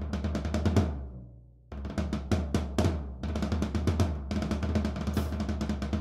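Floor tom with a new, undampened Evans drumhead played with sticks: a fast run of strokes, a pause while the low tone rings on and dies away, then quick strokes again over a sustained low ring. The ring means the head needs some dampening.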